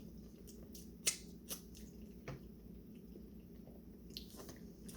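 Faint wet eating sounds, scattered sharp clicks and smacks, from someone eating seafood boil in butter sauce. The clearest click comes about a second in, with a few more after it.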